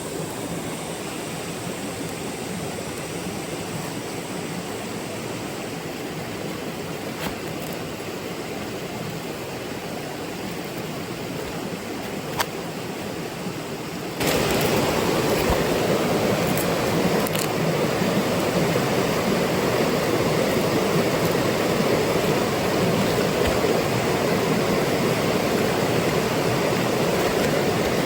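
Stream water rushing steadily over rocks. About halfway through, the rush suddenly gets louder and stays that way, and a couple of faint clicks come before the jump.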